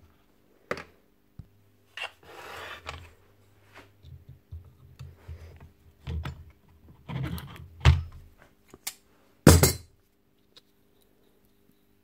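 Hard plastic and metal parts of a cordless circular saw's brushless motor being handled and pried apart with pliers: scattered knocks, clinks and scraping, with one sharp, loud knock about nine and a half seconds in.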